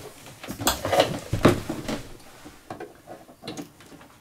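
Handling noises: a cluster of knocks and rattles in the first two seconds and a couple more about three and a half seconds in, as a battery charger's cord and plug are handled at a power inverter.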